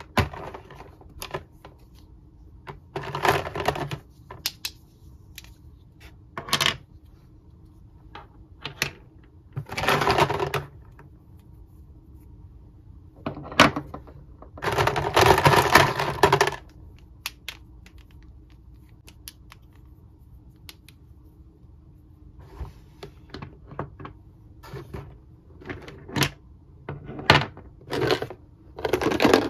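Hard plastic Mr. Potato Head parts clicking and clattering as they are handled, picked from a plastic storage bin and set down on a table. The sound comes in scattered clicks and short rattles with quiet gaps between, and the longest clatter falls about halfway through.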